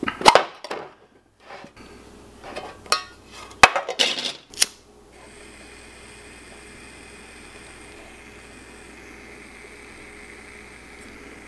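A handheld lighter being struck and a metal candle tin being handled: a cluster of sharp clicks and clinks near the start and again around four seconds in, then a faint steady hiss.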